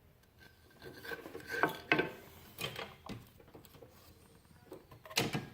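Wood rubbing and scraping in a few irregular strokes, like a cut pine workpiece being handled and slid against a surface.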